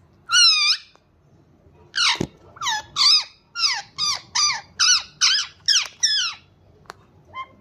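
Pet parrot calling: one high, wavering call, then after a pause a quick run of about ten shrill calls in a row, followed by a single click and one faint short call near the end.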